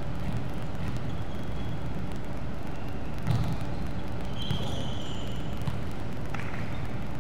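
Indoor volleyball play over a steady low rumble: the ball is struck once with a sharp smack about three seconds in, followed by a couple of lighter knocks and short sneaker squeaks on the wooden court.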